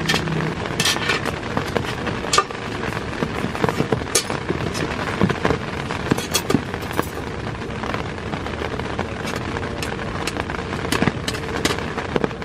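Steady rain pattering on the tent with many irregular crackling drops, and light metal clinks and scrapes from a folding camp table's wire legs being unfolded on its metal top.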